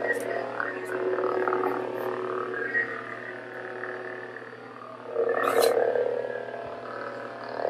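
Neopixel Darksaber replica lightsaber's sound board humming with a low buzzy drone, swelling into swing sounds as the blade is waved, the loudest swing about five and a half seconds in.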